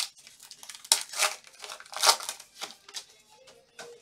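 Foil baseball-card pack wrapper crinkling and tearing as it is ripped open and the cards pulled out: a string of irregular rustles and crackles, loudest about a second and two seconds in.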